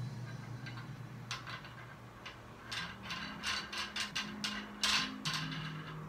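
Adjustable metal dumbbells clicking and clinking as they are gripped and handled on the floor: an irregular run of about a dozen sharp clicks, thickest near the middle.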